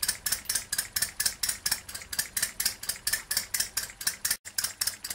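Two-cylinder four-stroke hot bulb model engine running on turpentine, with a rapid, even ticking beat of about five a second. It is running on its own heat, the blow lamps shut off. The sound drops out for an instant about four seconds in.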